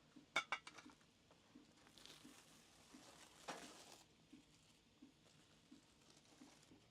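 Tableware clinking: a quick run of five or six light, ringing clinks about half a second in, then a soft rustle with a brief swish. Otherwise quiet.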